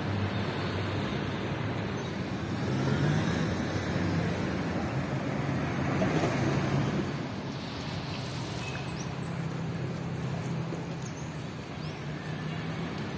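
Road traffic going by: a steady hum of cars, swelling as vehicles pass about three seconds in and again around six to seven seconds.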